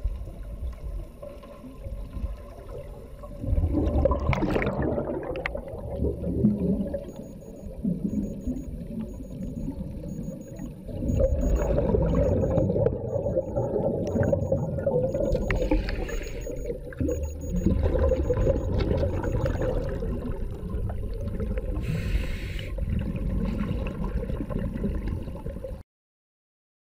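Muffled underwater sound picked up by a diving camera: a low rumble of water movement, with a few gurgling bursts of rising air bubbles. It cuts off suddenly near the end.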